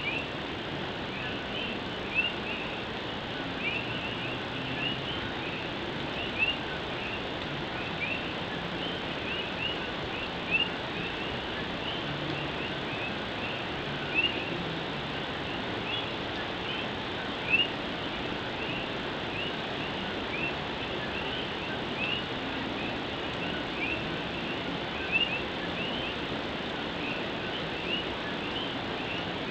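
Steady rain drumming on an old tin roof, under a chorus of Puerto Rican coquí frogs giving many short rising chirps, with a few nearer calls standing out louder.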